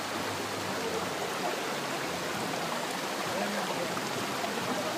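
Muddy stream rushing steadily over and around rocks.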